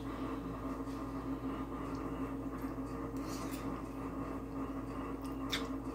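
Quiet eating: a few faint clicks of a fork in a bowl over a steady low electrical hum.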